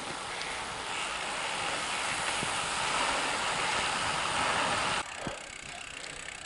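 Riding noise of a road bike heard from a camera on the bike: a steady rush of wind and tyre noise that swells a little, then cuts off suddenly about five seconds in, leaving a quieter outdoor background.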